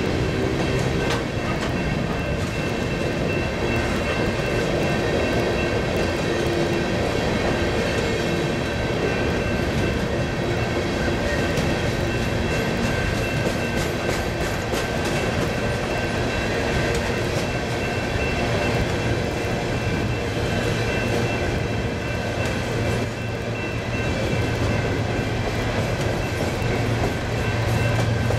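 Freight train cars rolling past, wheels clicking rhythmically over rail joints, with steady high-pitched wheel squeal. A low hum grows louder over the last few seconds.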